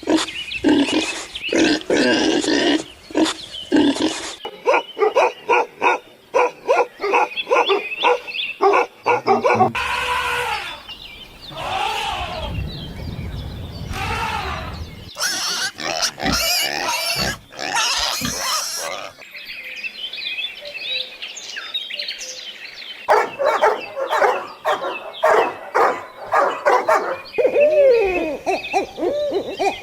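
Farm animal calls from a run of short clips, the kind of animal changing every few seconds.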